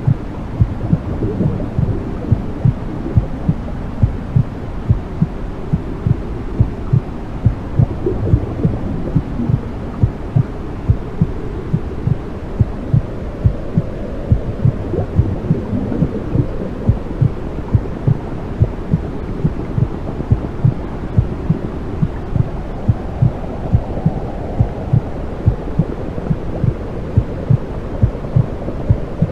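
Womb sounds: a mother's heartbeat thumping steadily, somewhat over one beat a second, over a low, muffled whooshing of amniotic fluid.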